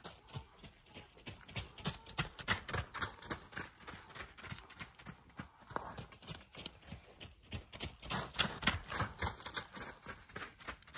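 Hoofbeats of a horse circling on a lunge line over packed dirt: a quick, uneven run of strikes, louder twice as it comes round.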